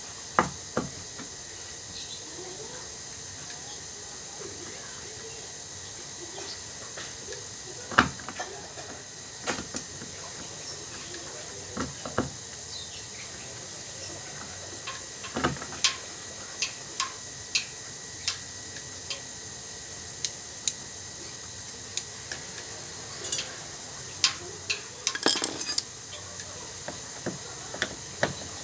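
Scattered metallic clinks, taps and knocks of hand tools and metal parts being handled while a washing machine's gearbox is taken apart, with a busier run of clatter near the end.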